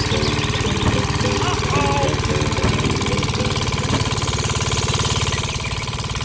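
A small engine running steadily with a fast, even beat. A few short squeaky chirps sit on top of it in the first half.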